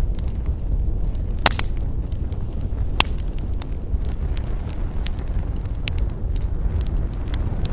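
Campfire burning, with a steady low rumble of flames and many sharp crackles and pops from the burning wood. A close pair of louder pops comes about a second and a half in, and another loud pop about a second later.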